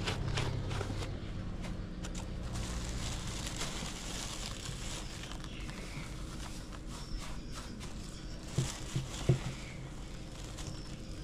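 Dry wood shavings rustling and crackling as rubber-gloved hands pour and spread them across a plastic tub as fresh bedding. A few sharp knocks come about two-thirds of the way through.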